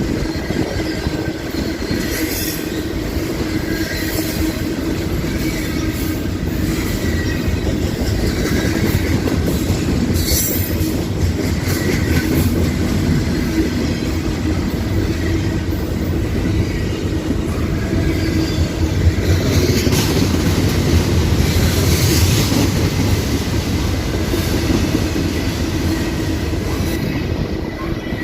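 A train rolling past on the rails, its wheels clattering steadily, with short high squeals from the wheels now and then.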